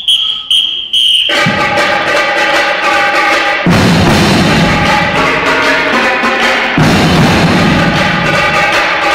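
Marching drumline playing a cadence on snares, tenors and bass drums, called in by a few short whistle blasts, with the drums starting about a second in. The bass drums come in heavily a few seconds later.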